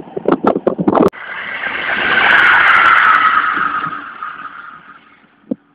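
Choppy wind buffeting on the microphone for about a second. Then an abrupt cut to an electric train on an overhead-wire line, whose rushing wheel-and-rail hiss swells, peaks, drops slightly in pitch and fades away as it passes.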